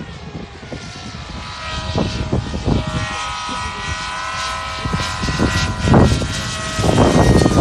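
Radio-controlled fixed-wing model aircraft flying overhead, its propeller motor giving a steady high-pitched drone whose pitch drops slightly at the start. Low irregular rumbling surges come over it, loudest about six seconds in and near the end.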